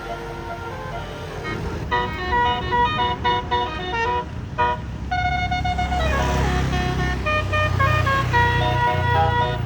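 A bus's telolet basuri musical horn plays a quick tune of stepped notes, starting sharply about two seconds in. A bus engine rumbles underneath, getting louder from about halfway through.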